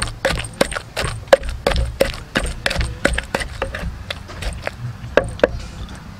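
Wooden pestle pounding wet red chili paste in a wooden mortar: dull, regular knocks about three a second that thin out near the end.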